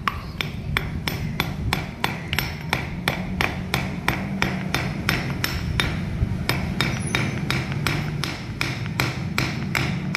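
Rapid, even hammer taps on metal, about three or four a second, driving the end gland of a New Holland tractor's power steering cylinder inward, with a steady low hum underneath.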